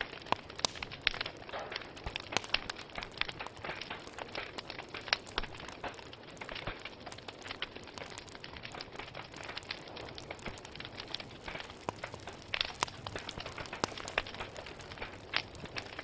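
Wood fire crackling: irregular sharp snaps and pops over a soft steady hiss, with a few louder pops.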